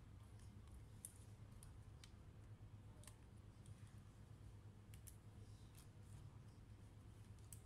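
Faint, irregular small clicks and taps of fingers working at the keyboard ribbon cable and frame of an opened Acer Swift 3 laptop chassis, over a low steady hum.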